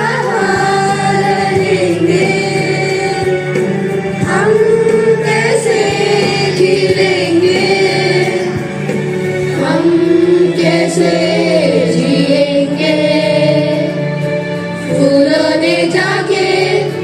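Children's school choir singing a song together over a steady low held accompaniment.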